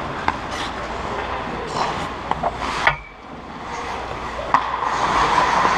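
Ice hockey play: skate blades scraping the ice, with a handful of sharp clacks, the loudest about four and a half seconds in. The scraping dips briefly about three seconds in.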